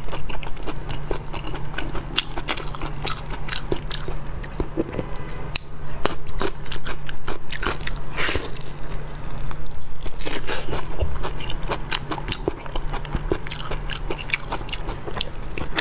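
Close-miked eating of braised meat: tearing it apart by hand, biting and chewing, with many small irregular clicks and crackles. A steady low hum sits underneath.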